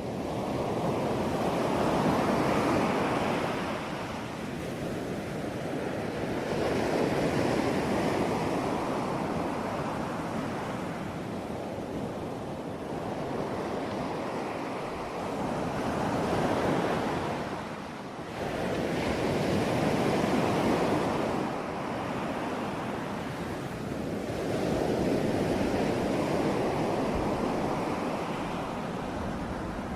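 Sea waves breaking on a shore, the surf rising and falling every few seconds in repeated swells.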